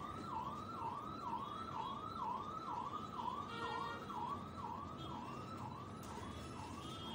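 A siren going in a quick up-and-down yelp, about two rises and falls a second, over the faint sizzle of oil in a frying pan where beef shami kababs are shallow-frying.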